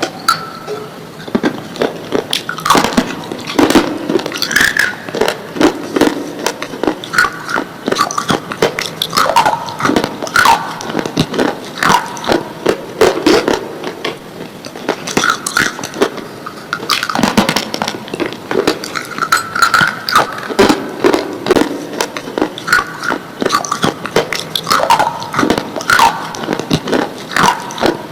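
Slate pencils being bitten and chewed: rapid, sharp crunching and crackling that goes on without a break.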